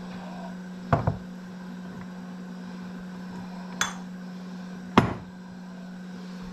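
Glass canning jars packed with potato pieces being handled on a wooden board: a few short, sharp knocks and clinks, a double one about a second in and the loudest about five seconds in, over a steady low hum.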